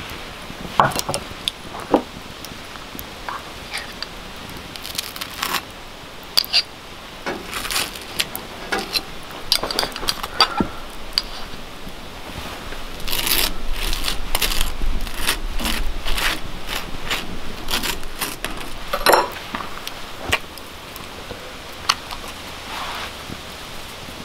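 Clinks and scrapes of cooking at an outdoor grill: a small ceramic dish and utensils knocking against cast iron and the grate, with a busier stretch of knife scraping as butter is spread on toast about halfway through.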